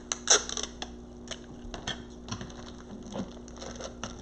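Scattered light clicks and taps of hands handling a plastic bag and tape, the sharpest about a third of a second in, over a faint steady hum.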